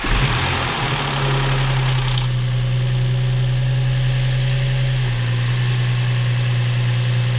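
2003 Infiniti G35's 3.5-litre V6 idling steadily, purring just after its first start on new spark plugs and fresh oil; a higher hiss fades about two seconds in as the idle settles. The idle is even, without jumping, a sign the car is out of limp mode.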